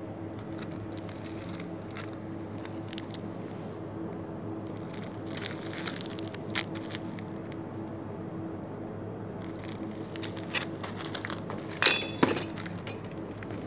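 Plastic-wrapped packaging handled on a wire store shelf: scattered rustling and light knocks, with a sharp clink near the end, over a steady low hum.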